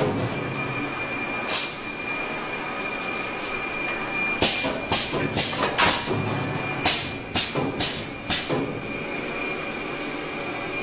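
HEPA glass-fibre pleating machine running with a steady mechanical noise and a thin steady whistle. It is broken by short sharp hisses of compressed air from its pneumatics: one about a second and a half in, then two runs of four, each about half a second apart.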